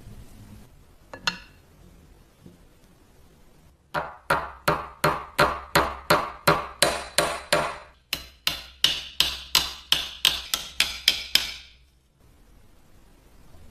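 A hammer striking metal in a steady run of blows, about three a second, each with a short metallic ring. The blows start a few seconds in and pause briefly about halfway through.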